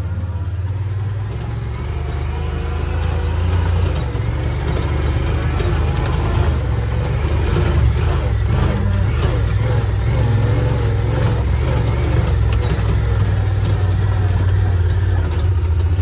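Side-by-side utility vehicle's engine running as it drives, a steady low drone that grows a little louder after the first few seconds.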